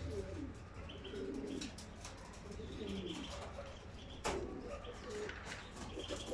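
Domestic pigeons cooing, a few low rolling coos that rise and fall, with one sharp click about four seconds in.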